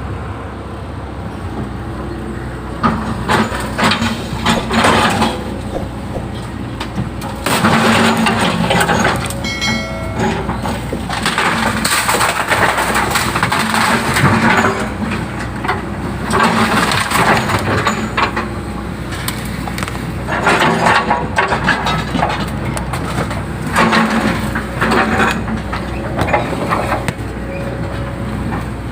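Hydraulic excavator's diesel engine running steadily while digging, with louder bursts of noise every few seconds as the arm and bucket work, and a brief whine about ten seconds in.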